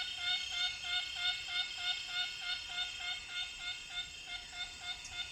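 Six o'clock cicada calling: a pitched, buzzing call pulsed into an even rhythm of about three notes a second. A steady high drone of other insects runs beneath it.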